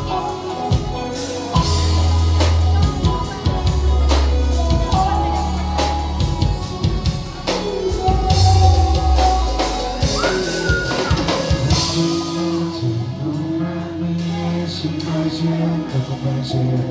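Live band playing an instrumental passage: an electric guitar plays sustained lead notes with a bent note about ten seconds in, over a drum kit and deep bass notes.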